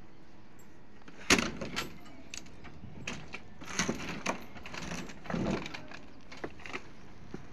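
Scattered knocks and short metallic rattles from a wooden handcart's large spoked wheel being handled, with one sharp knock about a second in and a few smaller clatters after.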